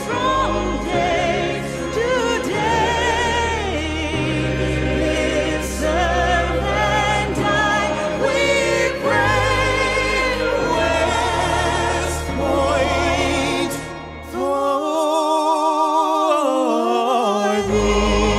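Background music: choral singing with vibrato over long, sustained low bass notes. Near the end the bass drops out for about three seconds, leaving the voices alone, then comes back.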